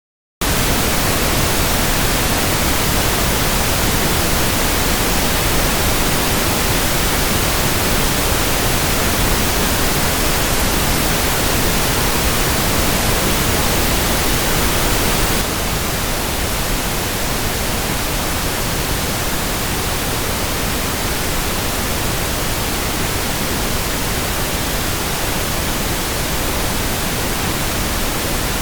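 Pink noise test signal for checking speaker channels: a steady, loud, full-range hiss. It starts abruptly out of silence and drops slightly in level about halfway through.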